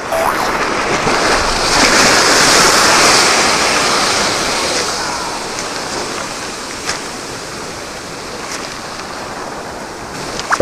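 Rough sea surf washing against a rocky shore: a steady rush of water that swells louder about a second and a half in and eases off again after a few seconds.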